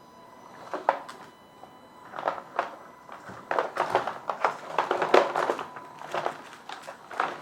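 Irregular clicks and knocks from a 1/10-scale RC crawler truck's plastic and metal parts, coming in quick clusters about a second in and thickest in the middle, over a faint steady hum.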